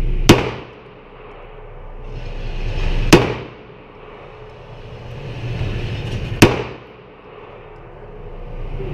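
Three handgun shots, about three seconds apart, each a sharp crack with a short echoing tail at an indoor range.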